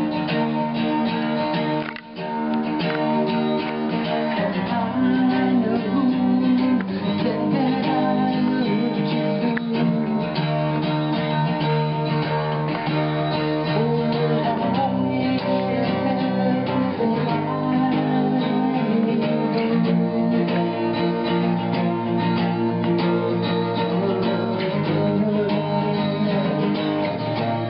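Acoustic guitar being strummed, chords changing every couple of seconds.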